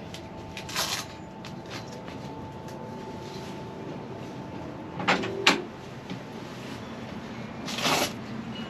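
Short handling noises of work on a UTV's plastic rear windshield and its fittings: a scrape about a second in, two sharp clacks around five seconds, and a longer scrape near the end, over a low steady hum.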